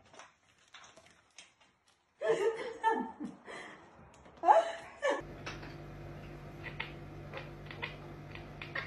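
A person laughing in two short bouts, the first about two seconds in and the second shortly after four seconds. About five seconds in, this gives way to a steady low hum with faint ticks over it.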